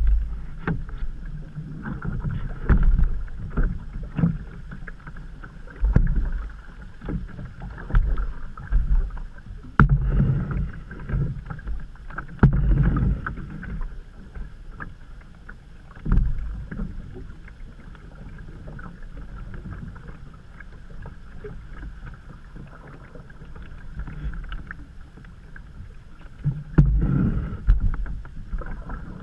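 Canoe paddling: a paddle dipping and pulling through creek water with splashing, irregular sharp knocks of the paddle against the canoe's hull, and low rumbling surges. It goes calmer for several seconds past the middle, then the splashing picks up again near the end.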